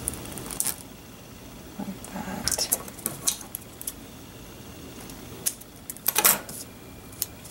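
Small handling noises of washi tape and planner paper: scattered light clicks and rustles, the loudest crackle about six seconds in.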